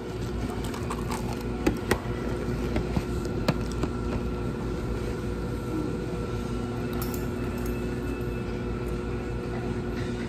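Steady machine hum of a shop's equipment, several fixed tones over a low rumble, with scattered light clicks and taps.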